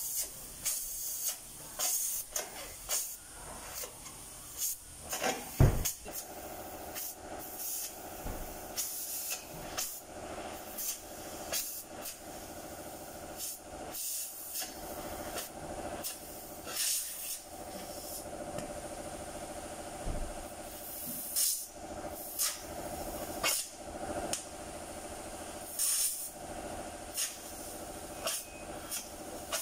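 Gas cutting torch hissing steadily as it cuts through car body steel, with frequent short, sharper spurts of hiss at irregular intervals. A single sharp bang about six seconds in.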